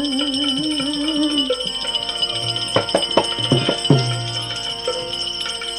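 Instrumental break in a devotional bhajan: a held, wavering note ends about a second and a half in. Then a quick run of hand-drum strokes with a deep bass boom comes near the middle, over steady jingling percussion.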